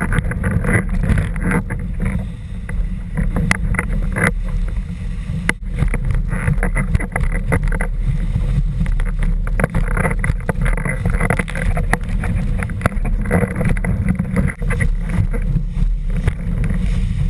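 Wind buffeting a rig-mounted camera's microphone over the rush and splash of water under a moving windsurf board, with frequent sharp taps and knocks throughout.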